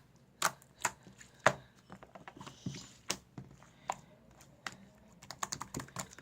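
Slime being pressed and squished by hand, giving irregular crisp clicks and pops, with a quick run of them near the end.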